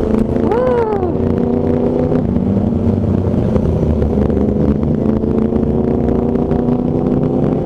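Motorcycle engine running at steady revs on the move, over a low rumble.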